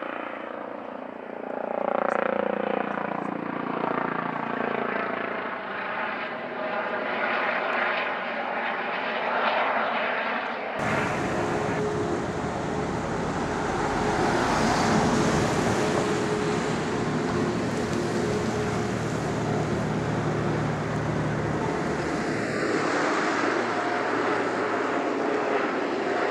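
Police helicopter flying past, with the rotor and turbine sound falling in pitch as it goes by. About 11 seconds in, a cut leads to another helicopter's steady rotor and engine noise.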